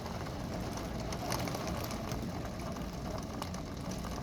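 Severe thunderstorm wind and heavy rain: a steady rushing, rattling noise, with a couple of sharp ticks about a second in and again near the end.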